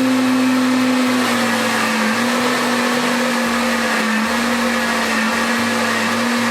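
Countertop blender running steadily, whizzing eggs, milk, sugar and margarine into a smooth cake batter. Its motor tone dips slightly in pitch about a second in, then holds.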